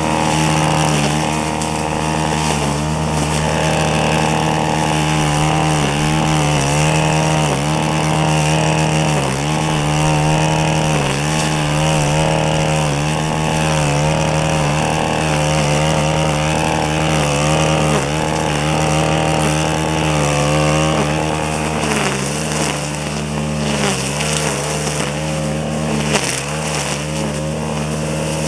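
String trimmer (weed eater) running at high speed while cutting grass and weeds. Its pitch dips briefly every second or so as the line bites into the growth.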